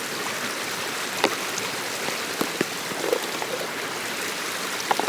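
Forest stream flowing steadily in an even rush of water, with a few light clicks over it.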